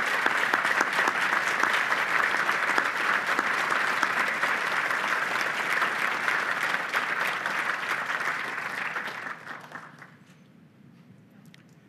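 Audience applauding, a dense steady clapping that dies away about ten seconds in, leaving a few last claps.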